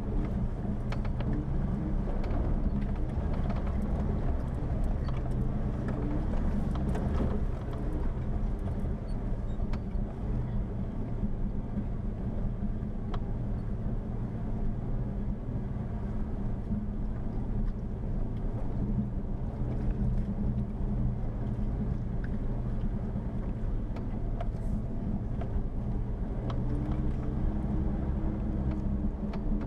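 Jeep Wrangler driving on a rough dirt track, its engine running steadily with scattered clicks and knocks over it.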